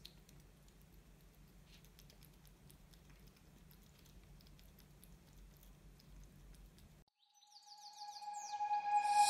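A cat eating dry kibble from a bowl: faint, scattered crunching clicks over a low hum. About seven seconds in this cuts off, and a chiming, bell-like tune fades in and grows loud near the end.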